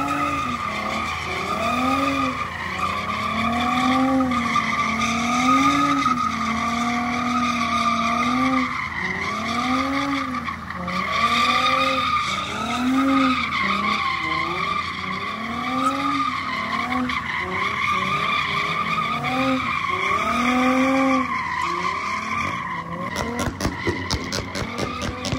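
Toyota Mark X's V6 engine revving up and down in a regular rhythm, about once every second and a half, while its rear tyres squeal steadily as it drifts. Near the end a rapid run of sharp crackles cuts in.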